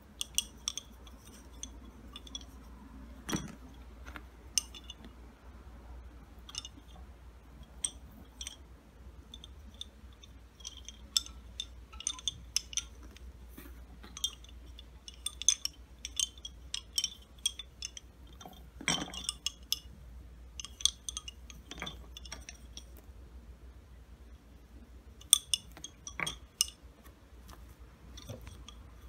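Wooden lace bobbins clicking against each other as they are handled and crossed, in irregular runs of light clicks with a few duller knocks.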